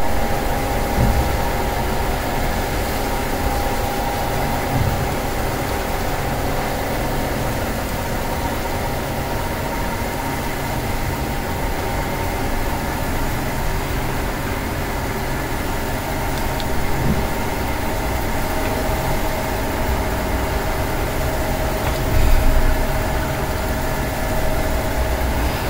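A steady mechanical drone, like a running engine or motor, with a low rumble and a few steady tones.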